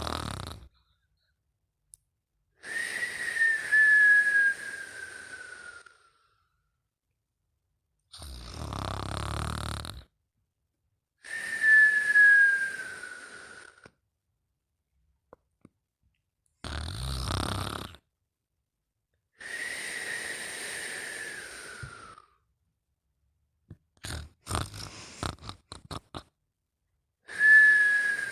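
Sleep snoring with a whistle. A short, low rattling snore alternates with a longer breath that carries a clear whistle sliding down in pitch, so the pair repeats about every eight seconds with silent gaps between breaths. A few short snuffles or clicks come shortly before the end.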